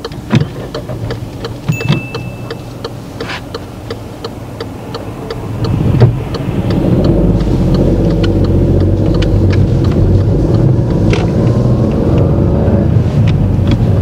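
Car's turn indicator ticking about twice a second over the engine. About six seconds in, the engine revs up as the car pulls away, and its running sound stays louder after that.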